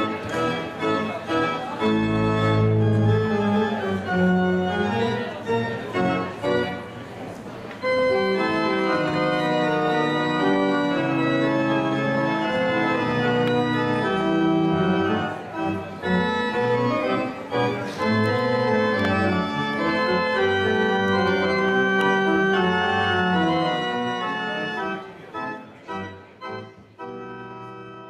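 Church pipe organ playing full, sustained chords in several voices. Near the end the playing turns to short detached chords and the sound falls away.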